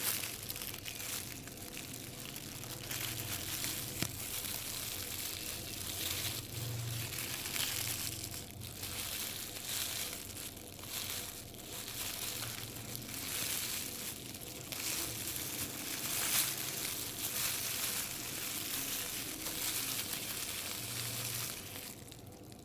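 A plastic bag being crumpled and handled close up: continuous crinkling and crackling that swells and eases as it is squeezed.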